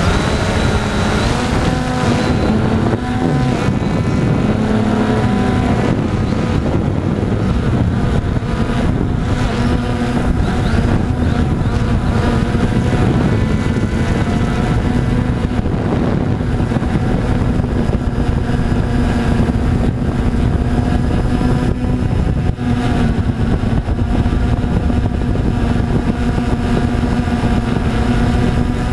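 Storm X3 multirotor drone's electric motors and propellers humming steadily in flight, heard close up from the camera on its own frame. The buzz holds several tones at once that drift slightly in pitch as the drone climbs and manoeuvres.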